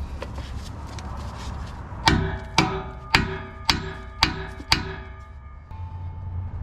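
Hammer striking a seized metal exhaust joint six times in a steady rhythm, about two blows a second, each blow ringing with a metallic tone, to knock the joint loose.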